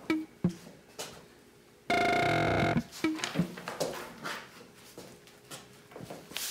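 A loud, steady electronic tone with several fixed pitches, lasting about a second, starting about two seconds in, with soft clicks and knocks before and after it.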